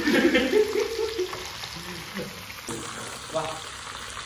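Whole chicken frying in a pot of hot oil, sizzling, while a metal ladle stirs and spoons the oil over it. The sizzle is strongest in the first second.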